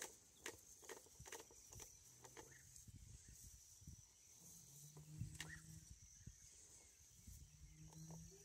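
Near silence: faint outdoor ambience with a steady high hiss, scattered soft clicks and a few brief low hums.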